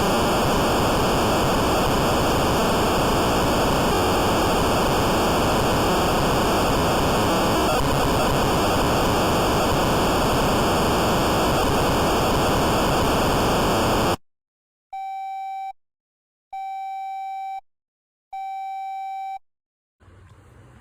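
Emergency alert alarms: loud harsh static with a steady high whistle in it, which cuts off suddenly about fourteen seconds in. Then come three evenly spaced mid-pitched beeps, each just under a second long.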